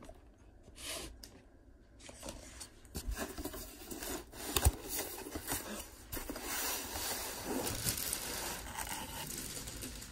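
Cardboard packaging being handled: rustling and scraping with scattered small knocks and clicks, starting about two seconds in after a quieter moment.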